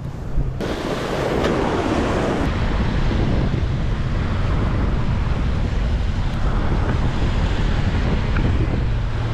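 Wind buffeting the microphone over small waves breaking on the beach: a steady, loud rush with a heavy low rumble.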